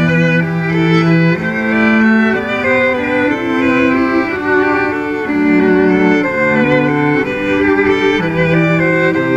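A string quartet of violins and cello playing slow music in long, held notes, with the cello sustaining low notes beneath the violins.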